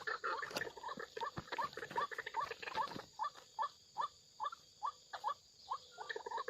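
White-breasted waterhen calling: a steady run of short rising croaks, about two or three a second.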